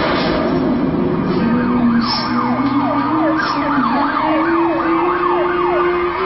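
Emergency vehicle siren sounding in quick falling sweeps, about three a second, from about two seconds in until near the end.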